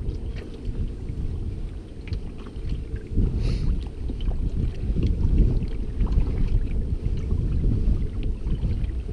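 Kayak paddle strokes through the water, with low wind rumble on the microphone that grows louder a few seconds in.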